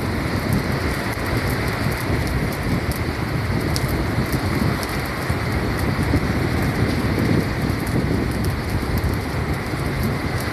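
Steady rushing noise of wind and water on a boat under way, with faint scattered ticks like spray.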